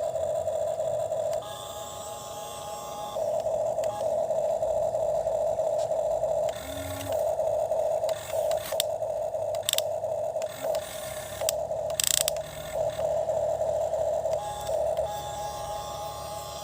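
Toy excavator's small electric motor whining steadily at one pitch, cutting out briefly several times as it starts and stops, with short scrapes and clicks of the bucket digging.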